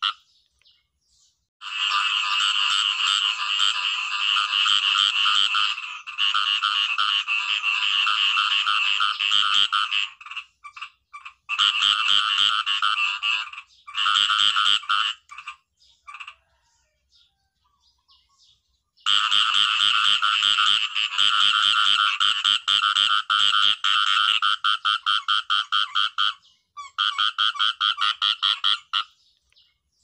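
Khiat i mo frog calling in long runs of rapid, rattling pulses, several seconds at a time, broken by short pauses and by a gap of about three seconds a little past the middle.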